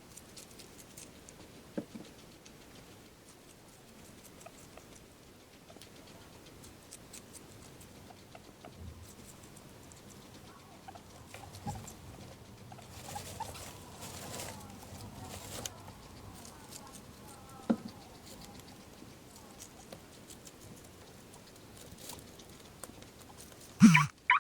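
Guinea pig pattering and rustling quietly, with a few sharp clicks, then a loud, short sneeze just before the end.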